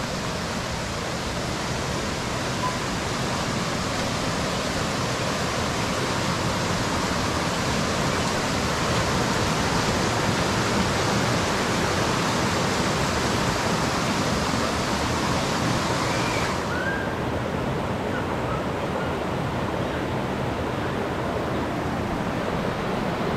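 River water rushing in a steady, even hiss. About two-thirds of the way in it turns duller, losing its highest hiss.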